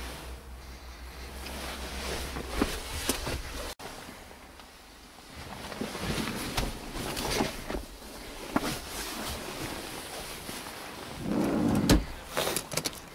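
Rustling and knocking handling noise from a handheld camera being moved close around a car's interior, with scattered short clicks. A low steady hum in the first few seconds stops abruptly about four seconds in, and the loudest rustle comes near the end.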